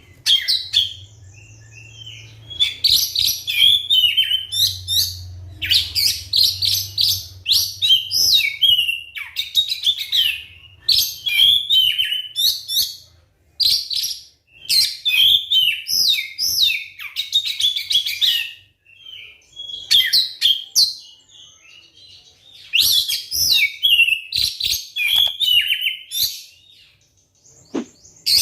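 Oriental magpie-robin (kacer) singing loud, rapid phrases of high, varied whistled notes, broken by short pauses every few seconds. A faint low hum underlies the first several seconds.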